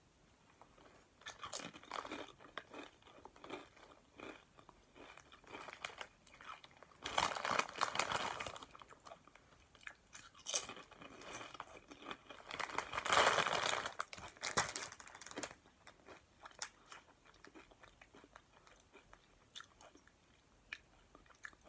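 Crunching and chewing of crispy taco chips, close to the microphone, with the loudest crunching in two spells about seven seconds in and again around thirteen to fifteen seconds.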